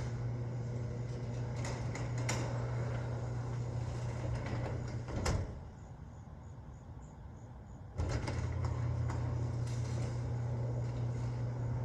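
Overhead Door Odyssey Legacy chain-drive garage door opener running with a steady motor hum and light chain clicking. It stops with a clunk about five seconds in, rests for about two and a half seconds, then starts again and runs to move the door the other way.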